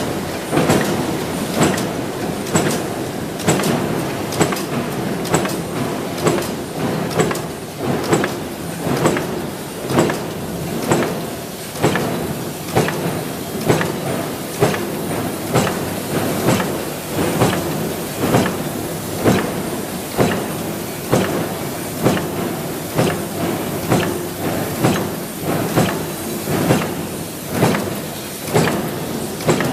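Power press stamping concealed-hinge parts from coil-fed steel strip: a sharp clank about once a second, with a steady mechanical clatter of machinery underneath.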